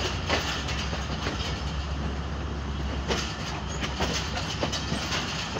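Passenger train coach rolling along the track, heard from the carriage window: a steady rumble with irregular sharp clacks as the wheels pass over rail joints.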